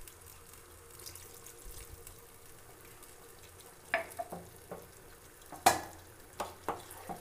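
A pan of chicken curry with freshly added water simmering faintly over a gas burner; from about four seconds in, a run of sharp clicks and knocks as the non-stick pan is gripped and shifted by its handle on the burner, the loudest knock a little before the end.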